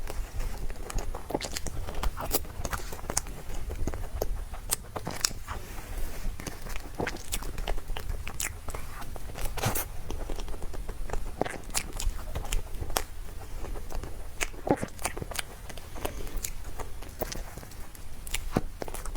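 Close-miked eating sounds: biting and chewing, heard as many sharp, irregular mouth clicks and smacks, several a second, over a low steady rumble.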